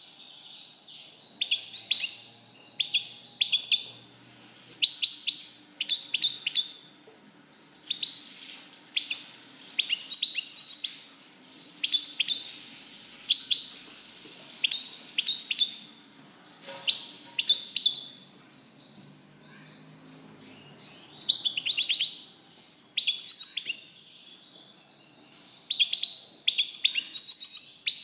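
European goldfinch singing: phrases of quick, high twittering notes and trills a second or two long, broken by short pauses, with a longer pause about two-thirds of the way through.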